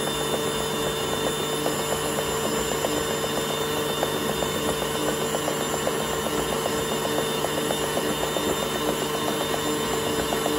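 Electric stand mixer's motor running steadily as its beater churns thick cheesecake batter in a stainless steel bowl, with a rapid, even ticking throughout.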